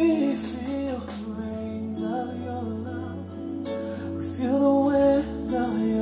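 A song with singing over strummed acoustic guitar and a sustained bass line, played back through home hi-fi loudspeakers and picked up by a microphone in the room.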